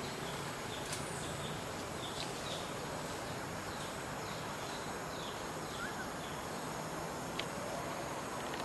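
Forest ambience: a steady hiss with faint, short, high bird chirps repeating every half second or so. Two sharp clicks, about a second in and about seven seconds in.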